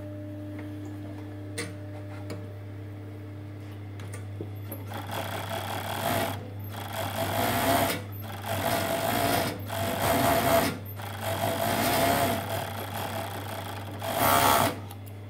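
Juki MO-6714S industrial four-thread overlocker sewing in several short runs with brief stops between them, starting about five seconds in, over a steady low hum.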